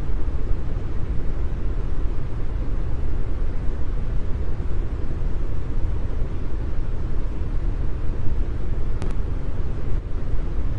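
Continuous brown noise: a steady, deep hiss, strongest in the bass and fading toward the treble, with one faint click about nine seconds in.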